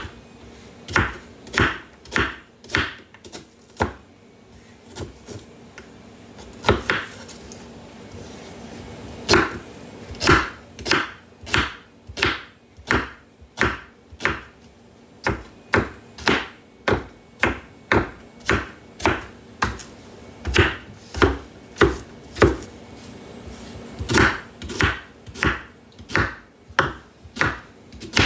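Kitchen knife slicing an onion on a cutting board: repeated sharp knocks of the blade meeting the board, mostly one to two a second, with a short pause in the middle.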